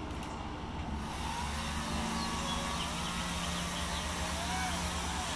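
Chainsaw running and cutting into a tree trunk, growing louder about a second in, its pitch wavering as it works through the wood.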